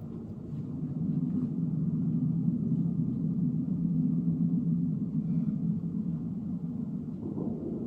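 A low, steady rumble that swells about a second in and eases slightly near the end.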